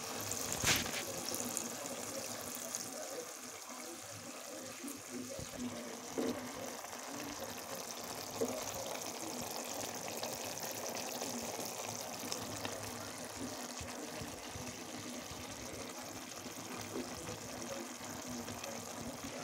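A little water being added to a pan of fish curry, which simmers with a steady, even wet sizzle. There is one sharp click less than a second in and a few faint knocks later.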